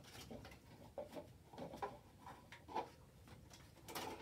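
Faint, scattered light knocks and clicks of objects being handled, about one every second.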